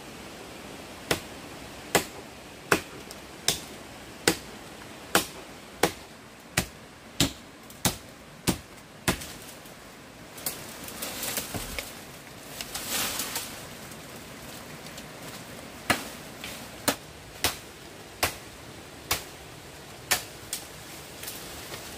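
A blade chopping wood in quick, even strokes, about one and a half a second, pausing in the middle for a stretch of rustling and scraping before the chopping starts again, over the steady rush of a stream.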